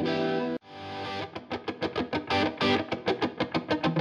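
Background music on distorted electric guitar: a held chord breaks off suddenly about half a second in, then quick picked notes follow in a steady rhythm.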